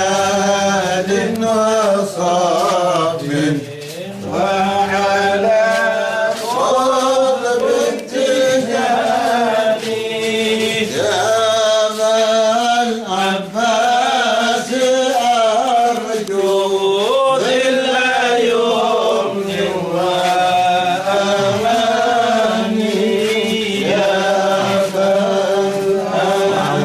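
A voice chanting an Arabic devotional hymn in long, ornamented melodic phrases, pausing only briefly for breath.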